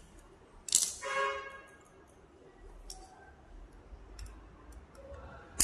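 Small metal tools and screws clinking during work on a bicycle disc-brake rotor: light scattered clicks, a sharp clink under a second in that rings briefly, and another sharp clink at the end.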